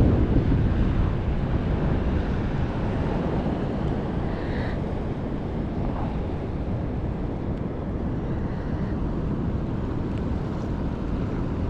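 Wind buffeting the microphone over the rush of ocean surf, a little louder in the first second and then steady.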